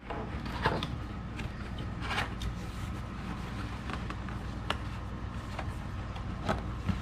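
Scattered light scrapes and clicks of packaging being handled, over a steady low hum.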